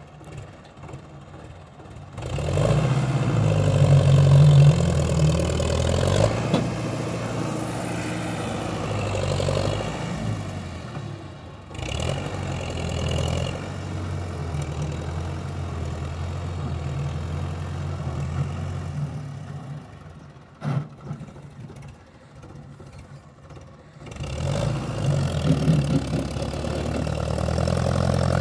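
Belarus tractor's diesel engine working hard under heavy load as it drags a full sugarcane trolley through sand. It comes in loud about two seconds in, eases off briefly twice, then pulls hard again near the end, putting out black smoke as it labours.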